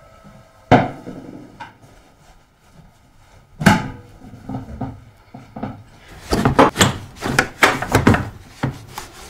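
Household handling sounds: two sharp knocks about three seconds apart, then from about six seconds in a run of quick clattering and rubbing as a rice cooker is handled and wiped down with a cloth.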